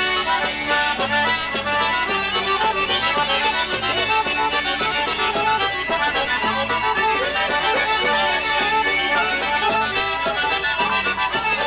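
Polka band playing an instrumental passage, with accordion carrying a fast melody over an alternating oom-pah bass.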